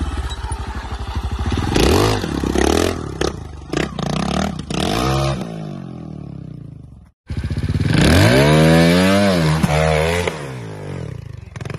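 Single-cylinder trials motorcycle engine revved in sharp blips, pitch rising and falling with each burst of throttle as the bike hops and climbs over rock. Knocks and clatter of the bike striking the rock come between the revs. A brief dropout comes about seven seconds in, followed by the longest rev, which rises and then falls.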